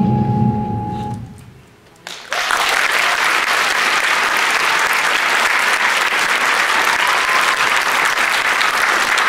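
Recorded dance music ends on a held note that fades out about a second in; after a brief hush, audience applause breaks out and continues steadily.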